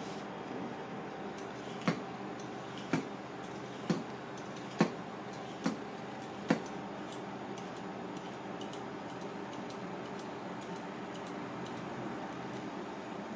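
Six sharp knocks, a little under a second apart, during kitchen food preparation, over a steady low background hum with faint scattered ticks.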